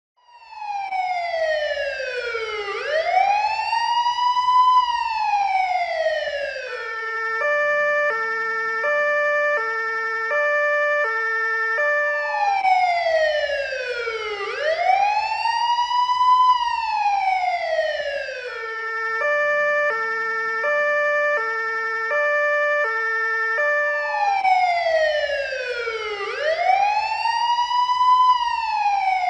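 Police car siren cycling through its tones: a slow wail that falls and rises in pitch, then a stretch of stepped tones switching back and forth, the whole pattern repeating about every 12 seconds.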